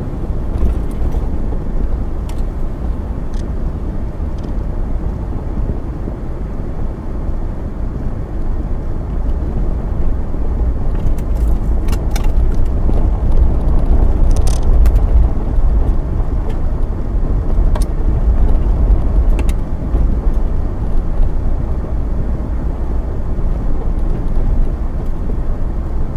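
Interior noise of a 2002 Infiniti QX4 driving a bumpy dirt trail: a steady low rumble of engine and tyres, with a few sharp knocks and rattles, most of them about halfway through.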